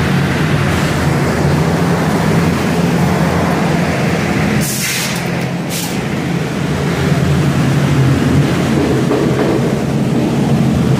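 Homag CNC machining centre running with a steady mechanical hum and low drone, broken about halfway through by two short bursts of compressed-air hiss.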